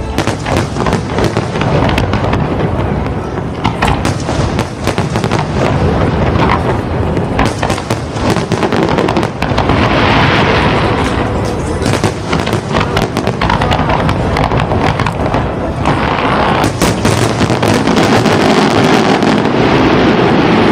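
Fireworks going off in a dense, continuous barrage of bangs and crackling.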